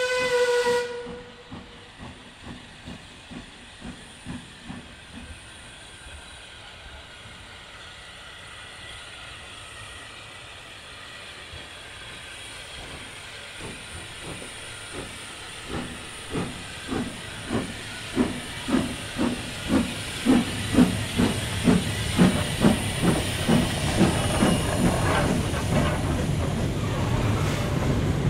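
Saddle-tank steam locomotive: its whistle ends just under a second in. Then come a steady steam hiss and exhaust chuffs, faint at first and growing steadily louder at about two a second as the engine works up and passes, with the wagons it hauls rumbling along behind near the end.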